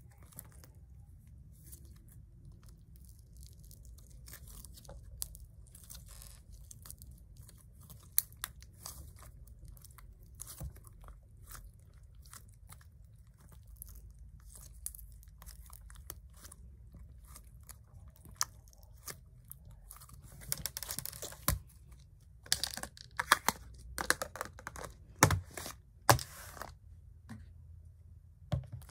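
Thick white slime squished and stretched by hand: a run of sticky clicks and small pops, getting busier and louder for several seconds before the end.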